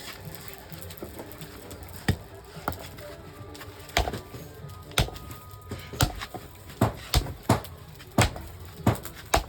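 A series of sharp knocks or strikes from a tool at work, two early on and then coming faster, about one a second or quicker, through the second half, with background music underneath.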